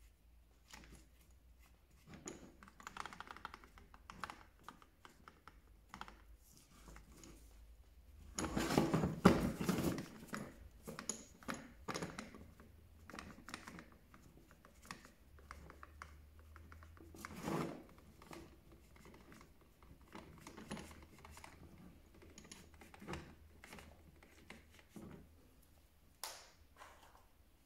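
Small handling sounds from hand-cleaning a plastic hammer drill: scattered light clicks, taps and rubbing. A louder noisy burst lasts about a second and a half around nine seconds in, and a shorter one comes near eighteen seconds.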